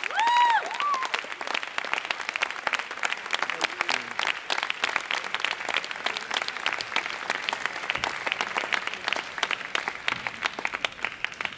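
Audience applauding: steady clapping from many hands, with a few short gliding tones in the first second.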